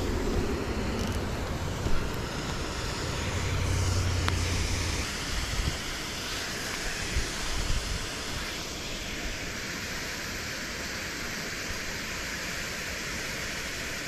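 Steady rush of river water, with a few brief knocks in the first seconds.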